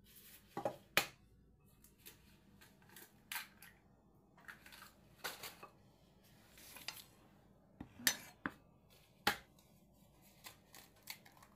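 Eggs being cracked against the rim of a bowl and bowls being handled: a scatter of sharp clicks and knocks, a few seconds apart.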